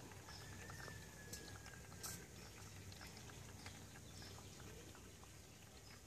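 Near silence: faint outdoor background with a low steady hum. A thin, faint whistle starts just after the beginning and fades out about two seconds in, and there are a few light clicks.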